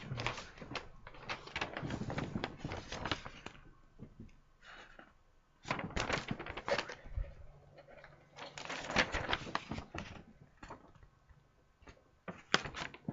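Rustling and crinkling of paper and plastic packaging as the contents of a plastic model kit box are handled, in several bursts with short pauses between.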